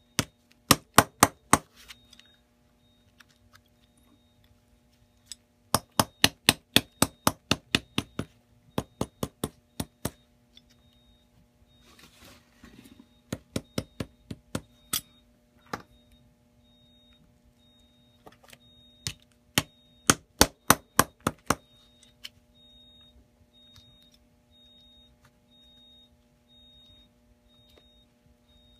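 Shoemaker's metal lasting tool hammering lasting tacks through a leather boot upper into the last around the toe: quick runs of sharp metal taps, in four bursts with short pauses between.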